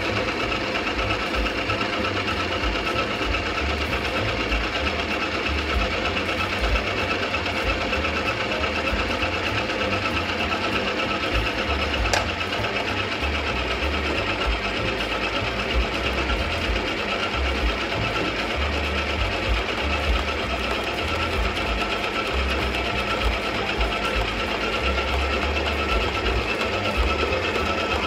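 Electric stand mixer's motor running steadily with the dough hook kneading yeast dough in a stainless steel bowl, as the flour and liquid come together into a dough. An uneven low thudding runs underneath.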